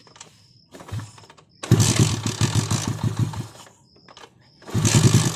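A 70cc single-cylinder four-stroke motorcycle engine, bored out with a 54 mm piston, being started. It catches about a second and a half in and runs for about two seconds, dies away, then catches again near the end and keeps running.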